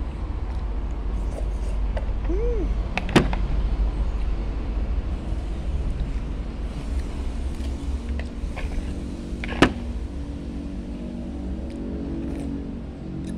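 A steady low rumble, with a motor vehicle's engine hum coming up from about seven seconds in, and two sharp clicks, one about three seconds in and one near ten seconds.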